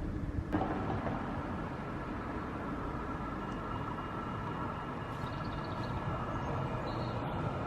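Tram running, a steady rumble of rail and motor noise that steps up suddenly about half a second in.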